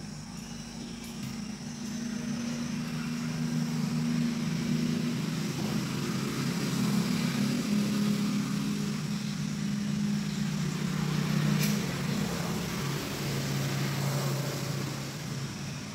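A low engine hum, like a motor vehicle running close by, that builds up over the first few seconds and fades near the end. A single sharp click comes late on.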